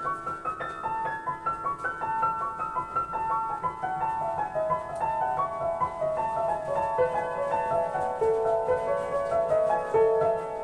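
Solo piano improvisation: a quick, dense run of notes in the upper-middle register that ring into one another, the line drifting gradually lower in pitch through the passage.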